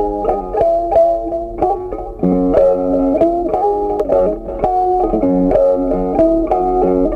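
Background music: a plucked guitar tune of short notes at a steady pace, with a bass line underneath.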